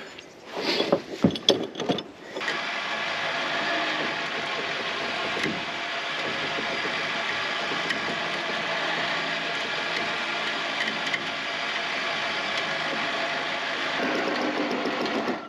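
A few knocks and clanks, then an electric trailer winch runs steadily under load, a motor whine with gear noise, as it pulls a motorcycle up onto the trailer. It starts about two seconds in and cuts off abruptly near the end.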